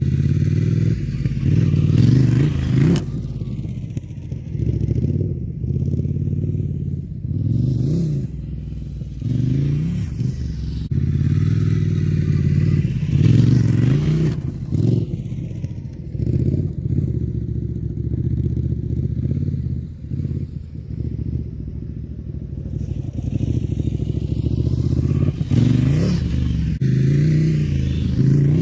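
Ducati Scrambler motorcycle's V-twin engine revving up and down repeatedly as it is ridden over rough dirt, loudest as the bike jumps the rock pile about halfway through.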